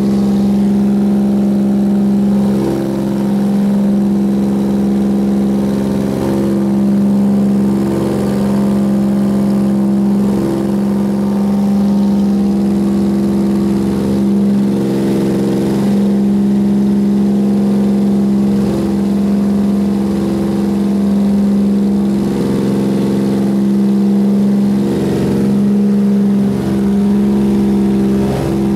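Single-engine propeller plane's engine and propeller droning steadily at cruise power, heard from inside the cockpit as a loud, even hum with a strong low tone.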